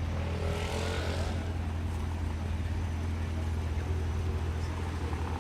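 Equus Throwback's supercharged V8 idling with a steady deep rumble, with a brief passing sound rising and fading about half a second in.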